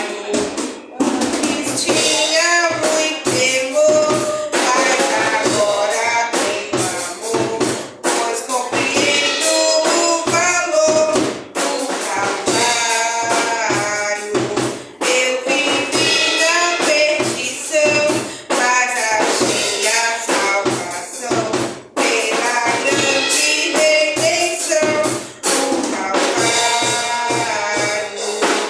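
Worship song at a church service: voices singing over a band with a steady beat.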